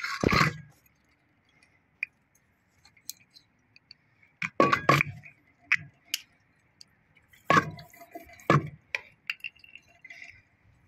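Scattered knocks and light clinks from handling a small APESPA electric water pump and a screwdriver on a hard floor. There is one knock just after the start, a cluster of knocks a little before halfway, and two more knocks about a second apart later on.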